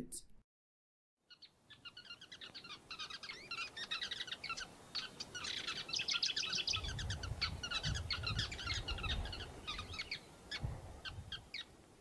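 A colony of sociable weavers chattering: many short, quick chirps overlapping, starting about a second in and busiest in the middle, with a low rumble under them for a few seconds past the middle.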